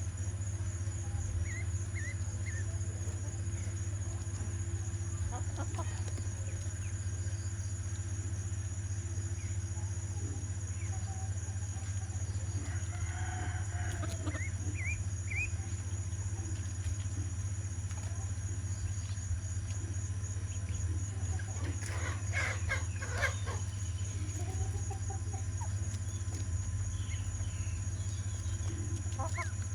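Chickens calling now and then, with a few short high chirps and louder clusters of calls about midway and again later, over a steady low hum.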